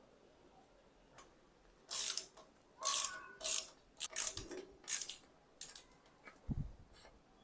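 Irregular metallic clicks and clatter of hand tools and bicycle parts being handled, a few strikes ringing briefly, with a dull thump near the end.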